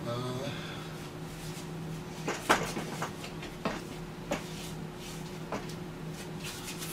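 Wooden boards knocked and set down as they are handled: about half a dozen short, light knocks and clunks spread over a few seconds, over a steady low hum.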